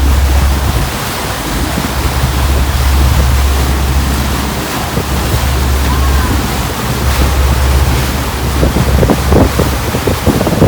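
Wind buffeting the microphone over rushing sea water, with a steady low rumble underneath, as on a boat under way.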